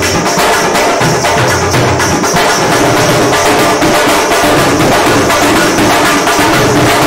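Dhol drumming in a fast, steady rhythm as part of loud music.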